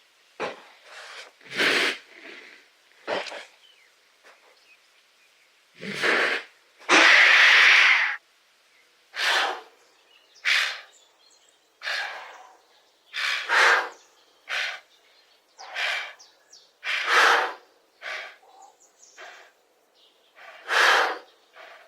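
Giraffe snorting and blowing air through its nostrils: a long run of short puffs and snorts at uneven intervals, with a longer, louder blow about seven seconds in.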